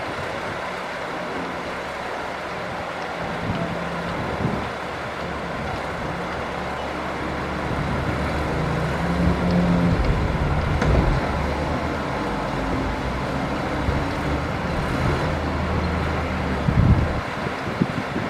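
Heavy diesel engine of an earthmoving machine running under load, growing louder for a few seconds in the middle as it works harder. A short run of knocks comes near the end.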